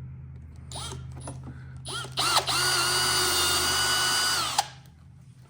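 Power drill boring a 6 mm (1/4 inch) hole in the bottom of a snowmobile glove box to mount a relay: two short trigger blips, then about two seconds of steady running at full speed that cuts off suddenly.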